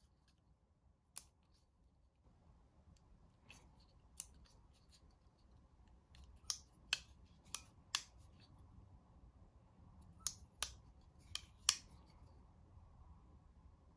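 Extrema Ratio BF2R folding knife being worked by hand: about ten sharp metallic clicks of the blade locking open and snapping shut, most of them in quick pairs in the second half.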